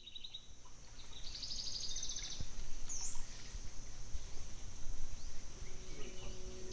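Forest ambience fading in: birds trilling and calling, one swooping call about three seconds in, over a steady high-pitched insect drone. A low steady tone enters near the end.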